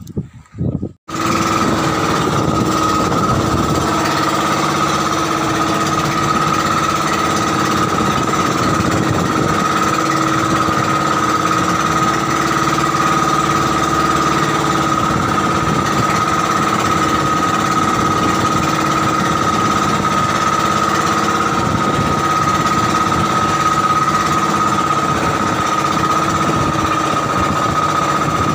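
Engine of a motorized outrigger boat (bangka) running steadily underway: a loud, fast, even clatter with a steady high whine over it. It starts abruptly about a second in.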